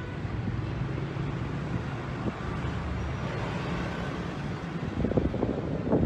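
Steady low rumble of city street traffic with wind buffeting the microphone, and a louder cluster of short bursts near the end.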